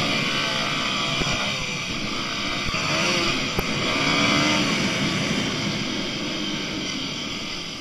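Dirt bike engine running on a dirt track, its pitch falling and rising as the throttle is rolled off and opened again, over a constant noisy rush.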